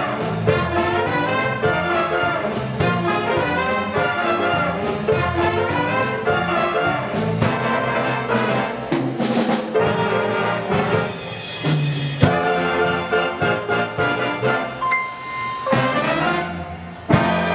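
Jazz big-band music led by trumpets and trombones, cutting off abruptly near the end.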